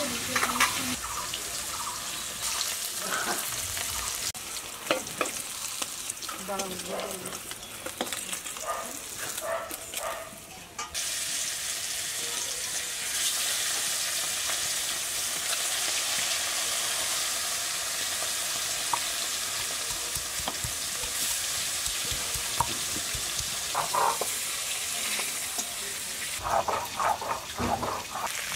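Rohu fish pieces frying in mustard oil in a metal wok, with a steady sizzle. A metal spatula clinks against the wok and the steel plate now and then in the first ten seconds, and again near the end.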